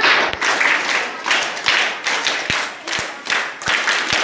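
A group of people clapping in a rough repeating pulse, mixed with chatter, with a few short dull thumps.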